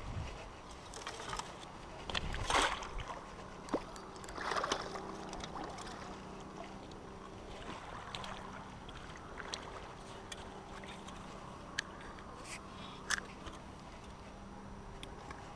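A small hooked lake sturgeon splashing a few times in shallow water as it is brought to shore, the biggest splashes a few seconds in, over wind rumble on the microphone and a faint steady low hum.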